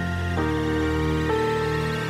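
Background music of sustained, held chords that change twice within about two seconds, with no firework bangs heard.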